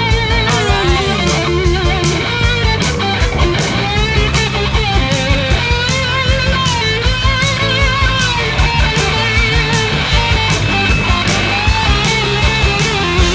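Background rock music: an electric guitar solo of sustained, wavering lead notes over a band with a steady beat, no singing.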